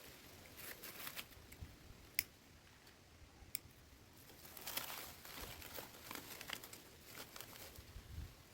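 Faint crinkling and rustling, with a few sharp clicks, of something being handled.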